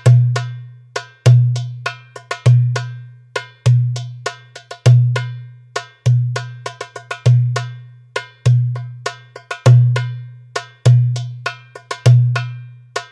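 Toumbeleki (Greek goblet drum) playing a steady tsifteteli rhythm at 100 bpm. A deep, ringing bass stroke falls about every 1.2 s, with quick, sharp high strokes in between.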